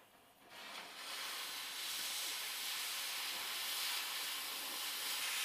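Oxyacetylene cutting torch hissing steadily as it cuts a circle through a metal plate. The hiss comes up about half a second in.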